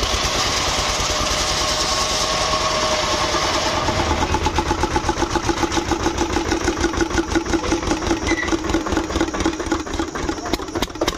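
An engine running steadily with a fast, even beat. For the first four seconds a hiss sits over it.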